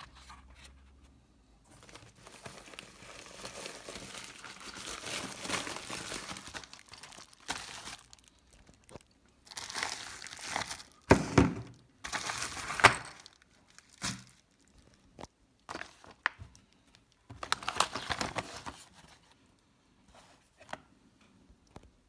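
Plastic packaging crinkling and rustling in bursts as it is handled: a bubble-wrap pouch and a sealed plastic bag. Two sharper, louder knocks come a little past the middle.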